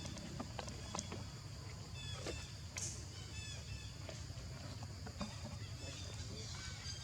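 Short high-pitched chirping calls from a small animal or bird, a quick series of them in the middle, with a few scattered clicks over a steady low rumble.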